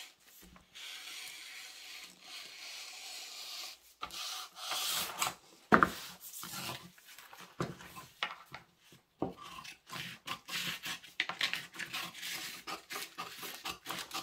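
Tailor's shears cutting through brown pattern paper, a steady crisp hiss over the first few seconds, then paper crackling and rustling in short bursts as the cut pattern pieces are handled. A sharp knock about six seconds in is the loudest sound.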